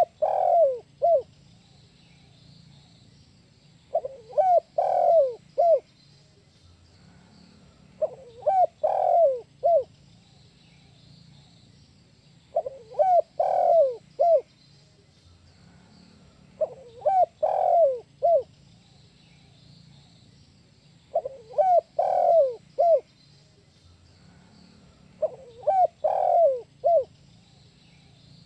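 Spotted dove (tekukur) cooing its 'kuk 1' song: a phrase of a few low, falling coos ending in one short, separate note, repeated about every four seconds, seven times.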